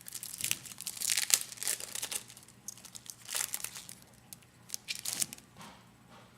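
Foil wrapper of a Bowman Chrome baseball card pack crinkling and tearing as it is torn open by hand, in several bursts of rustling, the longest in the first two seconds.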